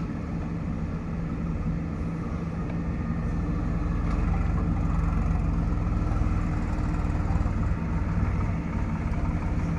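Heavy diesel engine of earth-moving machinery running steadily, growing louder about three to four seconds in as it works harder, with a brief dip near the end.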